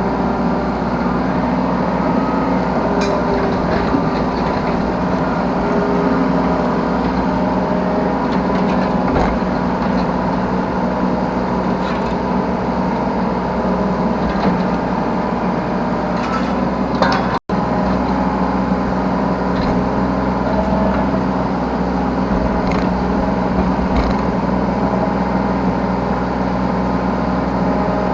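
Yanmar B3 Sigma 3-tonne mini excavator's diesel engine running steadily under work, heard from the operator's seat, with scattered clicks and knocks from the working machine. The sound cuts out for a split second about two-thirds of the way through.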